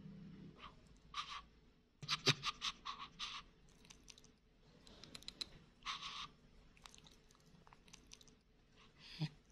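A monkey's mouth sounds: short runs of wet clicking and crunching, heard in several bursts with quiet gaps between.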